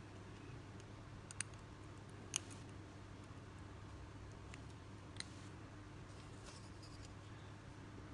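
A few small sharp clicks, three of them clear, as a steel fishing hook and a copper-wire-wound hook cluster are handled between the fingers, over a steady low hum.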